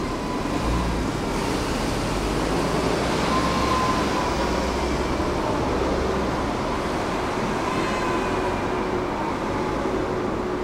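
Tram running along its rails: a steady rumble of wheels and running gear, heavier in the first half, with a faint thin whine that comes and goes.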